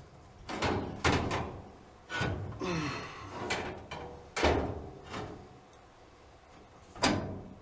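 Clothes dryer's sheet-metal panel being handled and fitted back into place: a run of irregular clunks and knocks, about six over several seconds.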